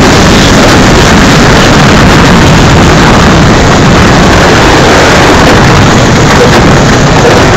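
Monobob sled running at speed down an ice bobsleigh track: a loud, steady rumble of its steel runners on the ice mixed with wind buffeting the helmet-mounted microphone.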